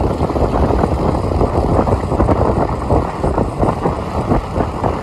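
Wind buffeting the microphone over engine and road noise from a moving vehicle, a steady gusty rumble.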